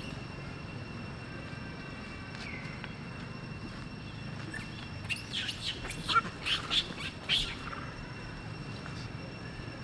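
A quick run of about seven short, high-pitched animal calls over two and a half seconds, about halfway through, over a steady outdoor background.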